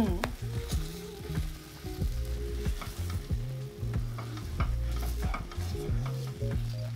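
Wooden spoon stirring thick, simmering tomato sauce in a frying pan, with many short scrapes and knocks against the pan over a light sizzle.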